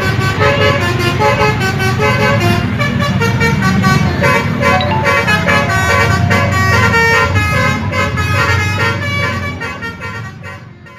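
Indonesian bus's Basuri telolet horn playing a quick melody of several-note chords over the bus's low engine rumble. It fades away near the end.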